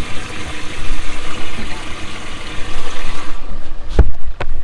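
Water churning and splashing steadily in a bass boat's livewell, stirred by its aerator. About three and a half seconds in it cuts off, and three sharp knocks follow.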